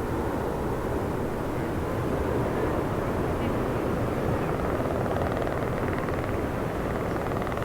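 Steady jet engine noise from aircraft in flight: the Shuttle Carrier Aircraft and its escort jets.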